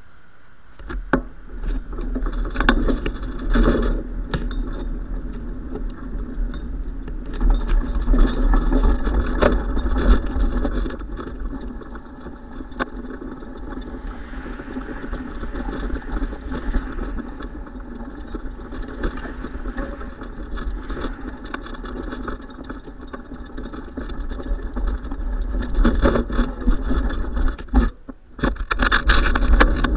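Riding noise from a bicycle-mounted camera: wind rumbling on the microphone, with tyre and road noise and frequent small rattles and knocks from the bike. It is quieter for the first second, then picks up as the bike gets moving, with a brief lull near the end.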